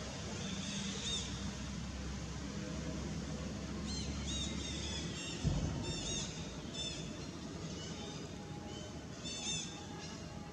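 High, quick chirping animal calls in short runs, about a second in, through the middle and again near the end, over a steady low background. A single thump about five and a half seconds in.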